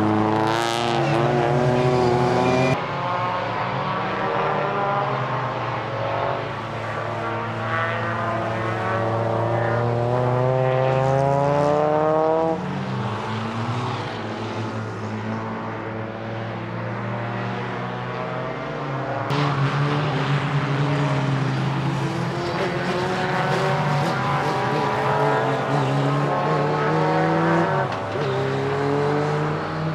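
Race car engines on a circuit, revving hard, the pitch climbing and falling again and again through gear changes and corners. The sound jumps abruptly a few times.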